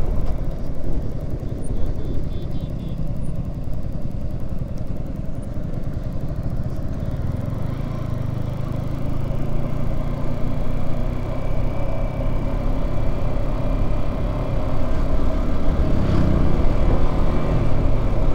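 Yamaha R15M's 155 cc single-cylinder engine running steadily on the move, with a brief change in engine note near the end.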